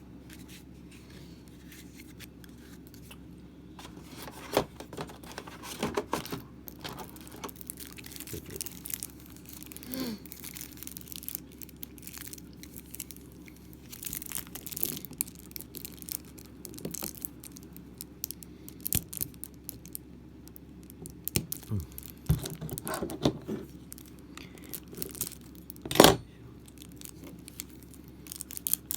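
Plastic wrapping crinkling and tearing while board game cards and pieces are handled: scattered rustles and clicks, with one sharp, louder snap near the end.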